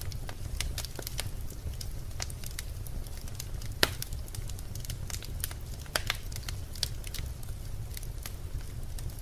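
Birch logs burning in a fireplace: a steady low rumble of the flames with irregular sharp crackles and pops from the wood, the loudest pop a little under four seconds in.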